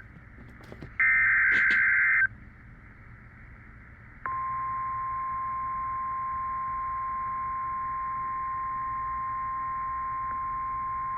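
NOAA Weather Radio alert signalling: a burst of buzzy digital SAME header data tones about a second in, lasting just over a second, then after a short gap the steady warning alarm tone (the 1050 Hz weather radio tone) starts and holds, announcing a new severe weather warning.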